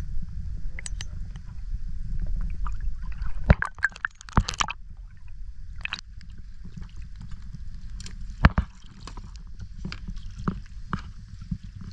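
Water sloshing and gurgling around a small boat, under a steady low rumble, with scattered knocks and clicks on the boat, several close together about four seconds in and a sharp one past the middle.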